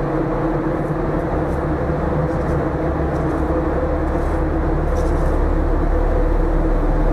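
Steady hum of a ship's machinery with two held tones, over a low rumble that grows about a second in, with a few faint footsteps on steel steps.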